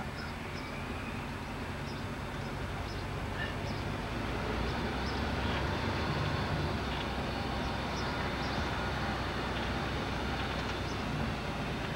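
Steady low rumble of a car driving slowly along a street: engine and road noise.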